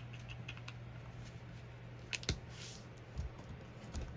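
Quiet handling of paper planner stickers and pages: faint taps and small clicks, two sharp clicks about two seconds in followed by a brief papery rustle, over a low steady hum.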